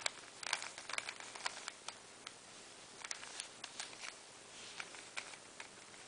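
Layers of a plastic 3x3 Rubik's cube being turned by hand through a sequence of moves (a corner commutator), giving a series of faint, irregular clicks.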